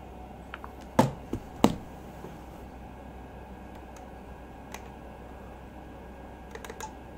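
Two sharp knocks about a second in, then a few light clicks from a laptop's touchpad buttons near the end, over a steady low hum.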